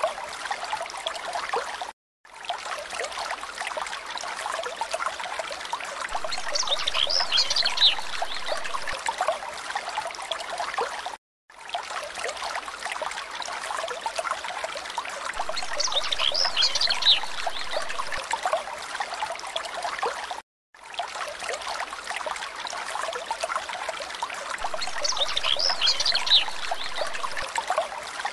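Looped background track of trickling, streaming water, with a brief cluster of high calls about midway through each repeat. The loop repeats about every nine seconds, cutting briefly to silence between repeats.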